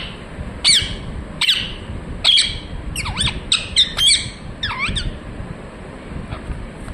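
Pet parrot squawking: a quick run of about ten short, shrill calls, each sweeping sharply in pitch, bunched in the first five seconds, then it goes mostly quiet near the end.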